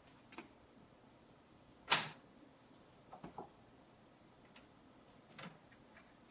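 Faint, scattered clicks and knocks as the chameleon cage is handled during cleaning, with one sharper knock about two seconds in and a quick cluster of small ones about a second later.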